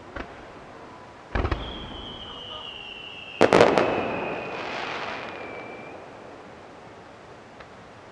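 Fireworks going off: a bang about a second and a half in, followed by a long whistle whose pitch slowly falls. A loud cluster of bangs comes about three and a half seconds in, with a hissing tail that fades over the next couple of seconds.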